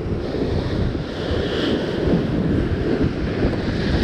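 Wind buffeting the microphone over ocean surf washing against the rocks, with a brief rise in hissing spray about a second and a half in.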